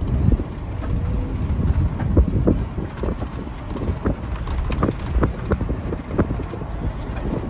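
Vehicle moving along a rough road, heard from inside the cabin: a steady low rumble of engine and road with frequent irregular knocks and rattles from bumps.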